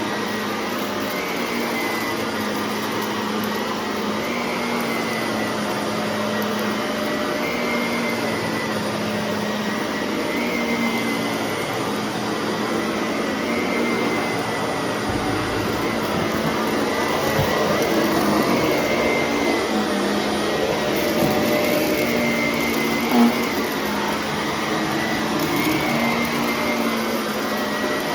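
Shark vacuum cleaner running steadily, its motor whine wavering slightly in pitch every two to three seconds. A short knock comes about three-quarters of the way through.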